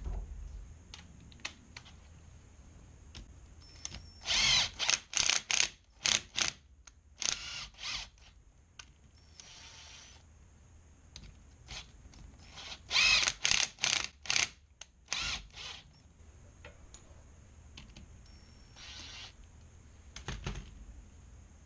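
Cordless drill turning a long through-bolt on a BMW 325i starter motor, run in short bursts of the trigger: a cluster of bursts about four seconds in and another about thirteen seconds in, with a few weaker ones between and after.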